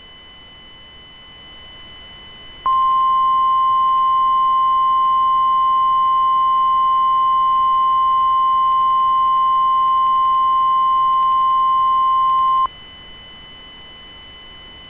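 Emergency alert attention tone: one loud, steady, pure tone held for about ten seconds, starting a few seconds in and cutting off sharply. Fainter steady high-pitched tones and hiss run under it throughout.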